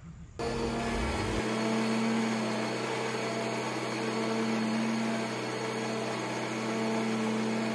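Scag zero-turn mower's engine running steadily under way, a constant hum that cuts in abruptly about half a second in.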